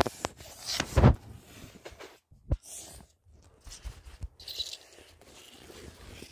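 Rustling and knocks from a handheld camera being jostled with a plush toy pressed close to it, loudest as a heavy thump about a second in and a sharp knock a moment later, then softer scattered rustling.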